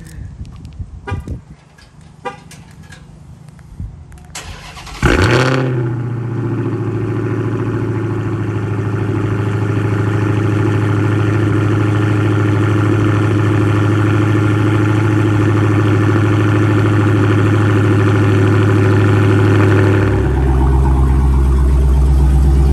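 A Dodge Charger Hellcat's supercharged 6.2-litre Hemi V8 is remote-started from the key fob after a few short clicks. It fires with a sudden loud flare about five seconds in, then settles into a steady, loud cold-start idle. The idle note drops deeper and gets louder about twenty seconds in.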